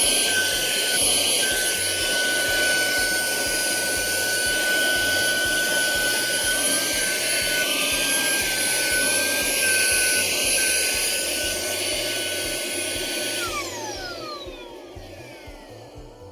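Cleanfly H1 cordless handheld cyclonic vacuum cleaner running, a steady high whine over rushing air, its pitch wavering slightly as it sucks up dirt. Near the end it is switched off and the whine falls away as the motor spins down.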